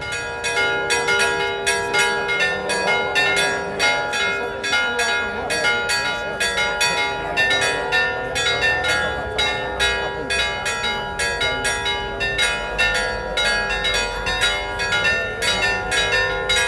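Church bells ringing a fast peal, about three strikes a second, the tones ringing on and overlapping. The ringing starts suddenly at the beginning.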